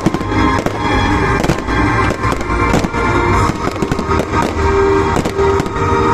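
Fireworks display: a dense run of bangs and cracks, several a second, with music playing underneath.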